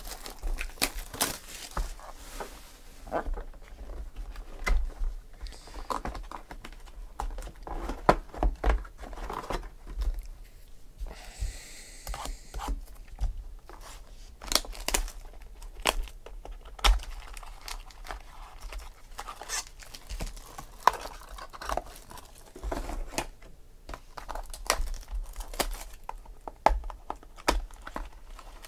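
Cellophane shrink wrap being torn off a 2014 Panini Select football card box, then crinkling and rustling of the cardboard and foil card packs as they are handled and opened: a steady run of short crackles and tears.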